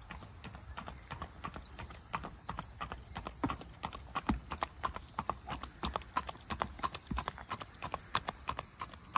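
A ridden horse's hoofbeats on a paved road: a quick, steady clip-clop, growing louder from about three seconds in.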